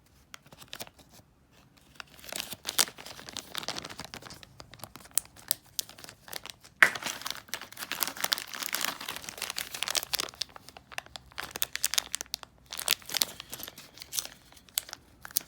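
A plastic bag of board-game pieces crinkling as it is handled, in quick, irregular crackles that start about two seconds in.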